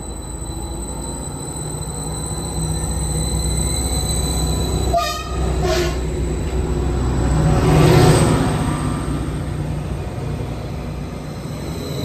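Greater Anglia Class 755 bi-mode multiple unit running past close by: a steady engine hum with a thin high whine, growing to its loudest about eight seconds in as the cars go by, then easing off as it draws away. The sound cuts out briefly about five seconds in.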